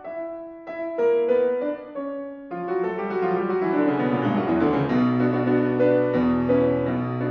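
Steinway concert grand piano playing a solo interlude in a polonaise, the violin resting: separate detached chords at first, then about two and a half seconds in a fuller, busier passage of quick running notes over sustained bass notes.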